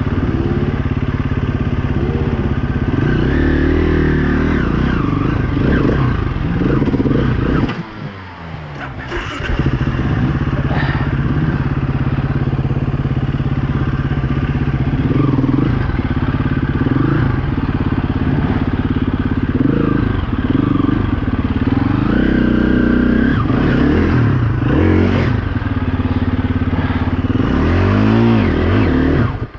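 KTM enduro dirt bike engine revving up and down under load on a hill climb. About eight seconds in, the revs fall away sharply for a moment, then pick up again.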